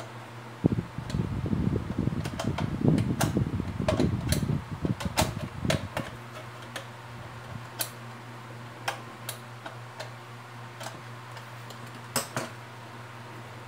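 Handling noise of a mechanical bathroom scale being put back together: a tool worked in the slot of its metal top plate, with dense scraping and rattling for the first six seconds or so, then scattered sharp clicks. A steady low hum runs underneath.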